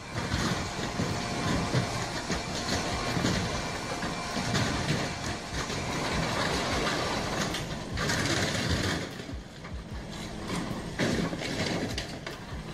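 Diesel engine of a Link-Belt demolition excavator running as its grapple tears at the aluminium fuselage of a Boeing 737, with crunching and scraping of metal. The crunching grows louder about eight seconds in and again near the end.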